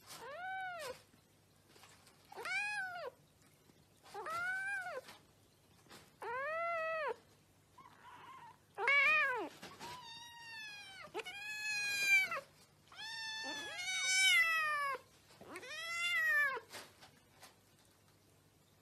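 Kitten meowing repeatedly: about ten high meows, each rising and then falling in pitch, spaced out at first and coming closer together in the second half.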